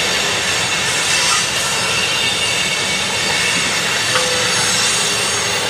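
Freight train of tank cars rolling past, a steady noise of steel wheels on rail with faint squealing tones above it.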